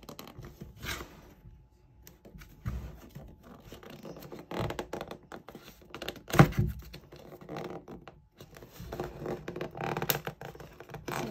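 Fingernails scratching and picking at a stubborn sticker seal on a cardboard box, with bits of tearing and scraping against the card. A single thump a little past the middle is the loudest sound.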